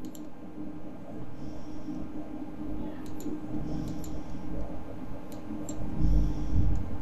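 A few scattered computer mouse clicks over a steady low electrical hum and background noise.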